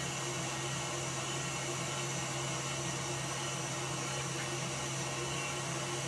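Electric stand mixer running steadily at speed, whisking egg whites into meringue: an even motor hum and whir.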